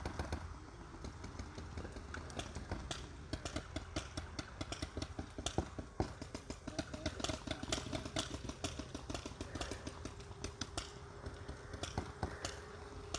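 Paintball markers firing in quick, irregular volleys of sharp cracks, over a steady low hum.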